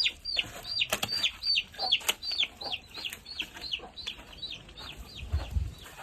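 Chick peeping loudly and over and over, each peep falling sharply in pitch, about three a second, the insistent call of a chick separated from its brood. A few knocks and a low thud come late on.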